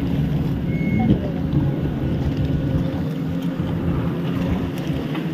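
Tourist boat's engine running with a steady low drone.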